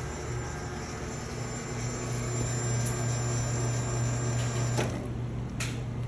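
Cimbali M1 superautomatic espresso machine's pump humming steadily while pulling a shot, louder in the middle and easing off about five seconds in. Two short clicks come near the end.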